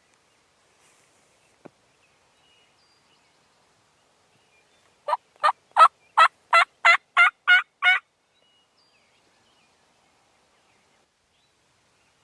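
A series of about nine turkey yelps, roughly three a second, lasting about three seconds.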